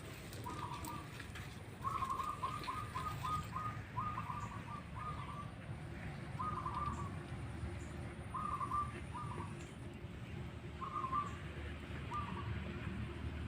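A bird calling in short runs of quick, repeated notes every second or two, the longest run about two seconds in.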